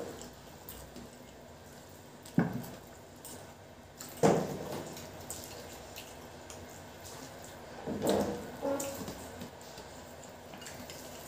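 Wet squishing of rice and curry being mixed and scooped by hand on steel plates, with sharp clicks about two and a half and four seconds in and a louder cluster of them around eight seconds.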